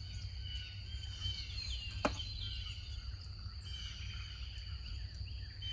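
Garden ambience: birds chirping in short falling notes over a steady high-pitched insect drone and a low rumble, with a single sharp click about two seconds in.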